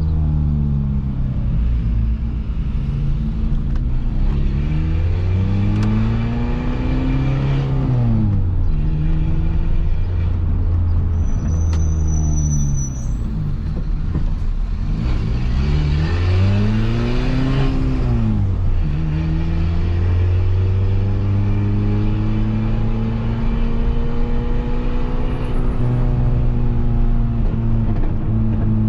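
Peugeot 206 1.4 four-cylinder engine running through a straight-pipe exhaust while driving. The revs climb and drop sharply twice, then hold steady at a higher pitch through the last several seconds.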